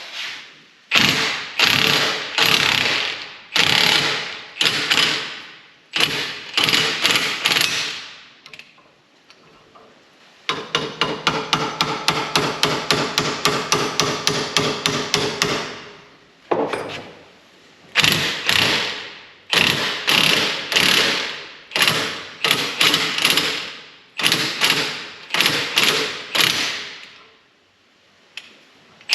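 Steel hammer blows on a Jeep front-axle U-joint and yoke, driving out bearing caps wedged in place. There are strikes about one a second, with a run of quicker, lighter rapid strikes in the middle.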